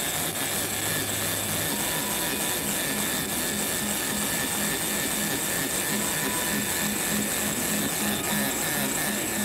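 Heavy big-game fishing reel working under the strain of a hooked Greenland shark: a steady mechanical whirr with a regular low pulse.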